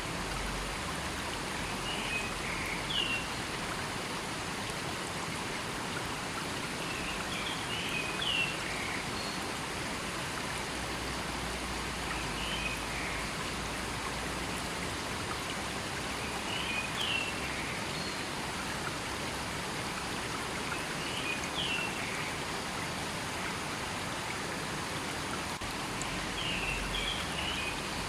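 River water flowing steadily over stones, an even rushing sound. A short high bird call breaks through about every four to five seconds.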